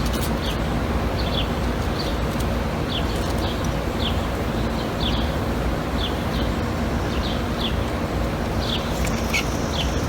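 Small bird chirping repeatedly, short sharp falling notes about one to two a second, over a steady outdoor noise with a faint low hum.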